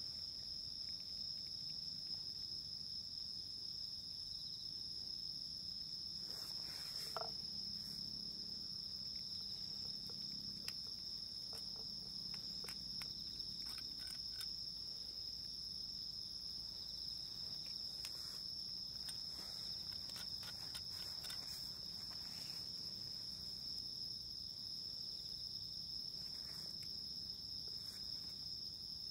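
Steady chorus of crickets and other insects, one continuous high trill, with faint scattered clicks and taps.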